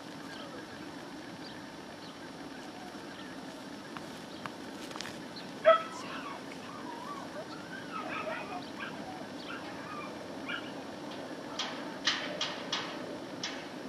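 A border collie gives one loud bark about six seconds in, then a few seconds of high whining and yips. Near the end come four or five sharp taps in quick succession.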